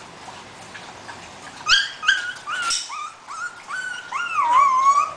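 Siberian husky puppy whining: after a quiet start, a run of short high-pitched whines begins about a second and a half in, the last one longer and wavering in pitch.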